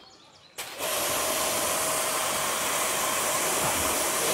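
High-pressure water jet from a Ballorex CW130 2300-watt electric pressure washer spraying the car's door and window: it starts suddenly about half a second in and runs as a loud, steady hiss with a faint steady whine over it.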